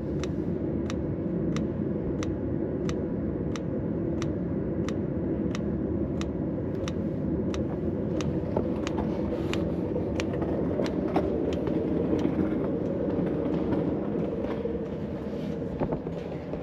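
Autoterm Air 2D diesel heater's dosing fuel pump ticking steadily, about three clicks every two seconds, over a steady rushing noise. The pump is clicking at the correct rate: the fuel pump is working normally.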